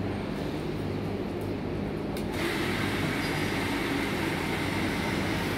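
A steady low hum, then about two seconds in the CEMSA PWF1510 pressure washer is switched on: its electric motor and plunger pump start and run with a sudden, louder steady whir and hiss.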